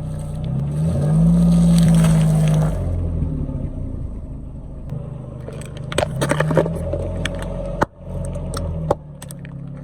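Car engine running and revving, rising in pitch about a second in, as its tyres roll over objects; a cluster of sharp cracks and crunches comes about six seconds in and more near nine seconds as things are crushed under the wheels.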